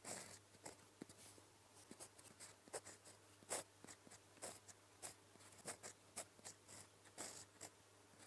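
Fountain pen nib scratching on paper: a quiet run of short, irregular pen strokes as Korean characters are handwritten.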